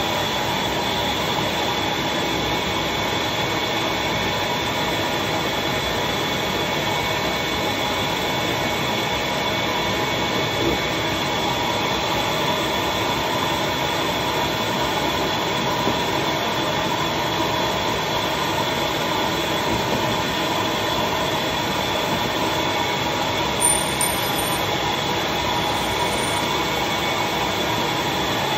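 Vacuum motor of a leaf-casting suction table running steadily with a whine, pulling the paper pulp down through the Hollytex into the filled areas.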